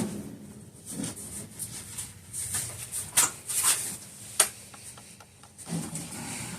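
Scattered knocks and clatter of things being handled and shifted about, with one sharp knock about four seconds in and a quick run of small ticks just after.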